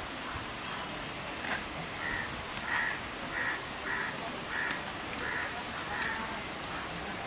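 A bird calling over and over: about seven short calls at a steady pace of roughly one and a half a second, starting about two seconds in.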